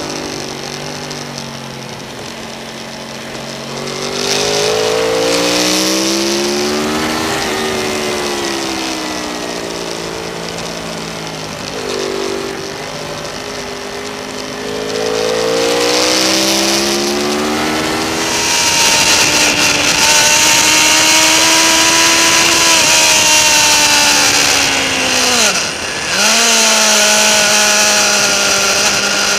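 Onboard sound of a sportbike's inline-four engine at track speed, revs climbing and falling repeatedly through gear changes and corners, with a short sharp drop in revs and quick recovery about 26 seconds in. Wind rushes over the bike, loud from about 18 seconds in.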